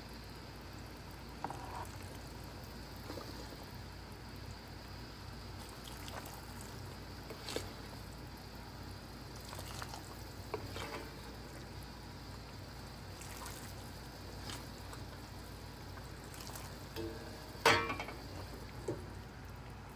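Broth poured into a divided stainless-steel hot pot, with a few light metallic clicks and one louder clink near the end.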